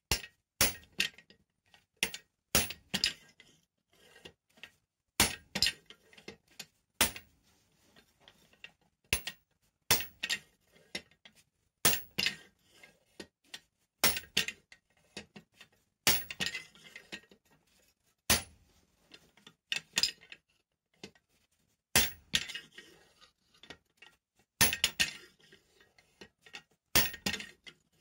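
Hammer blows on the top die of a guillotine-style forging tool sitting on an anvil, forging a red-hot steel bar between its dies. The strikes are sharp and ringing, about one every one to two seconds and often in quick pairs.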